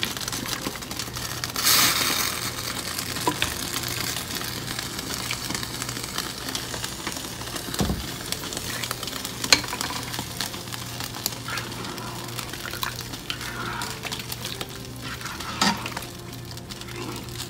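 Chicken and chickpea curry sizzling and simmering in a pot on the stove, with a louder burst of sizzling about two seconds in. A spoon clicks against the pot now and then as the curry is stirred, most clearly near the end.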